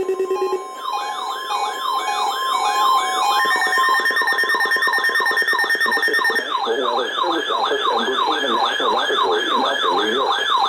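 A weather alert radio's electronic siren alarm: a tone sweeping up and down about twice a second that starts just under a second in and cuts off at the end. It answers the NOAA Weather Radio 1050 Hz warning alarm tone, which is heard as a steady tone beneath it for the first few seconds.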